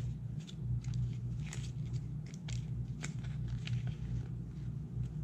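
Paper pages of an instruction booklet rustling as they are flipped, a string of short crisp rustles and crackles over a steady low hum.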